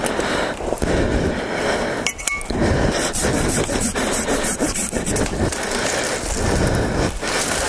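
Silky folding hand saw cutting through a tree limb, a run of rasping back-and-forth strokes of the blade in the wood.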